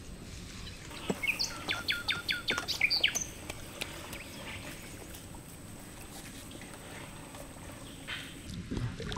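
A bird calling: a quick run of about six short, falling chirps between about one and a half and three seconds in, over low outdoor background noise.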